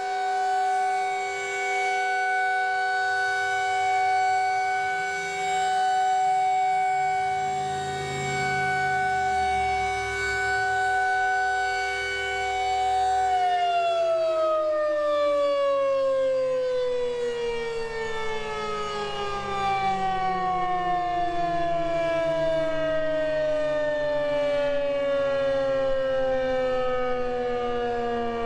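Federal Signal 2001-SRN outdoor warning siren sounding its steady alert tone, a chord that swells and fades as the siren rotates. About halfway through it shuts off and winds down, its pitch falling slowly.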